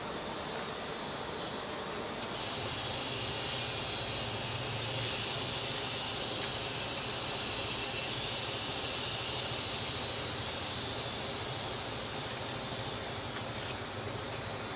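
Forest insects droning: a steady high-pitched hiss that comes in suddenly about two seconds in and eases off after about ten seconds, over a constant lower background hiss.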